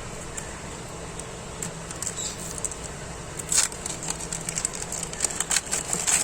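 Trading-card packet wrapper crinkling and tearing open by hand: scattered sharp crackles that grow busier and louder about three and a half seconds in.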